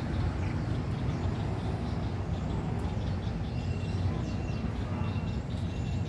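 Steady low rumble of outdoor background noise, with faint high bird chirps scattered through it and a thin high tone coming in short dashes from about halfway in.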